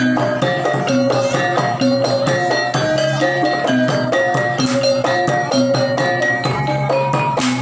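Javanese gamelan music for a jaranan horse dance: ringing pitched metal notes in a repeating pattern over steady percussion strokes.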